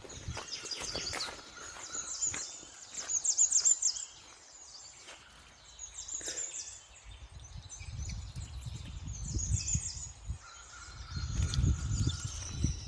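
Small finches twittering and calling in quick, high chirps. A low rumble comes in during the second half.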